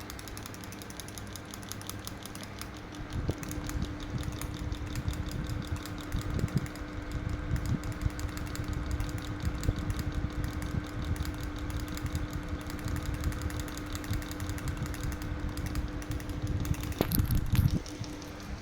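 Ceiling fan running: a steady motor hum with rapid, regular ticking and an uneven low rumble, which grows louder near the end.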